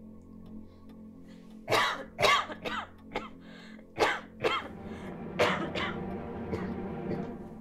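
A person coughing in a fit, about seven harsh coughs in quick succession over roughly four seconds, heard over soft background music.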